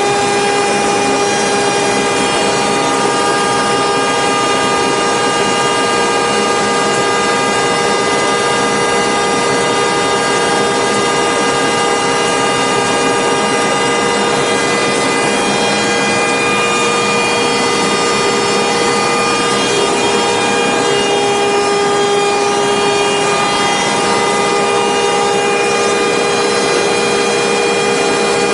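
Industrial production machine running steadily, its large rotating drum turning: a loud, constant machine noise with several steady whining tones over it.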